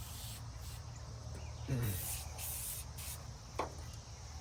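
Aerosol can of oven cleaner sprayed in several short hissing bursts, with a steady low hum underneath and a brief falling pitched sound about two seconds in.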